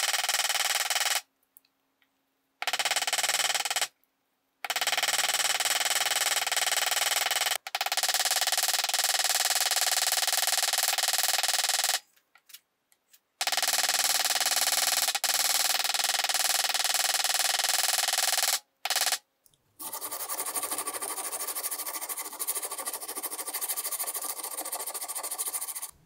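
Small ball-peen hammer tapping rapidly on solid brass knife pins, peening them into place against a steel vise anvil; the run of taps stops in several short silent breaks. Near the end a quieter, hissier sound of another kind takes over.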